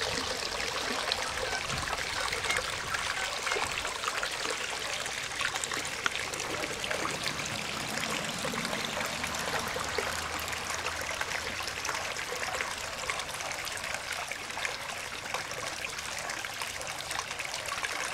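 Shallow creek water trickling steadily over and between rocks, with many small splashes.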